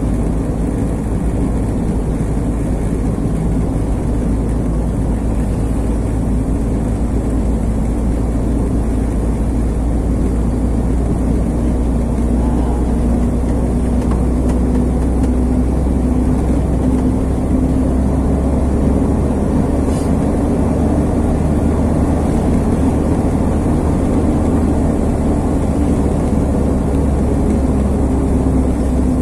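Truck engine running steadily with road noise, heard from inside the cab while driving: a continuous low drone with a steady hum that grows a little stronger partway through.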